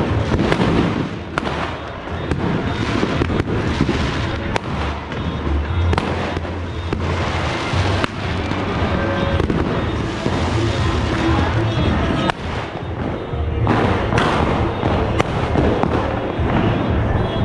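Fireworks and firecrackers going off all around, with many sharp bangs and crackles overlapping in a continuous barrage.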